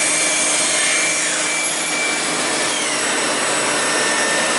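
Steady machine-shop noise: an even hiss with a few faint, steady high-pitched whines.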